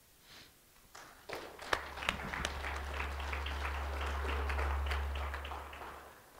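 Congregation applauding: clapping starts about a second in, swells and dies away near the end, with a low steady hum underneath.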